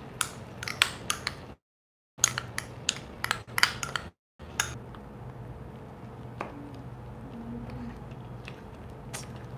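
A metal spoon scraping and clicking against a small ceramic bowl as ground tamarind paste is knocked off it into a stainless-steel pot, a quick run of clinks over the first few seconds. Then a ladle stirs the cooking tomatoes with a few light clinks over a low steady background. The audio drops out to total silence twice, briefly.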